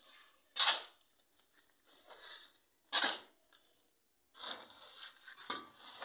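Mason's trowel scraping and scooping mortar in a basin: a few sharp scrapes, the loudest about half a second, three seconds and five and a half seconds in, with softer scraping between.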